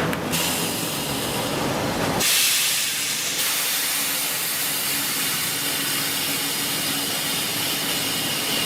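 Sawmill log debarker stripping bark from a log: a loud, steady hiss and rasp of steel rollers on wood, with a faint machine hum beneath. About two seconds in the sound shifts abruptly and turns harsher for a second or so.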